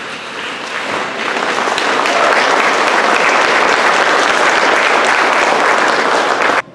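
Audience applauding, building up over the first two seconds, holding steady, then cutting off suddenly near the end.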